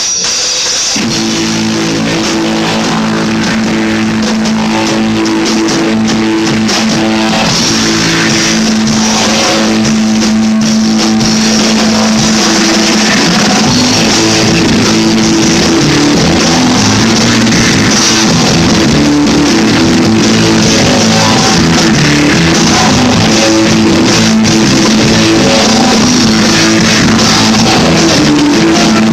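Rock music led by guitars, with sustained chords and notes over a steady band backing.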